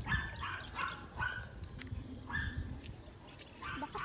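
A dog giving short, high barks, about six of them, with a pause in the middle.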